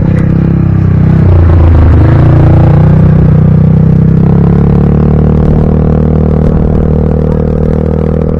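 Quad bike (ATV) engine running loud and close, rising in pitch as it revs up about a second in, then holding a steady drone.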